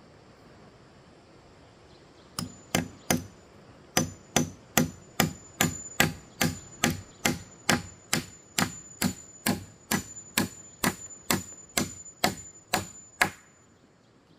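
A hand tool striking repeatedly in a steady run of sharp blows, about two and a half a second, each with a faint high metallic ring. Three quick strikes about two seconds in open the run, and it stops shortly before the end.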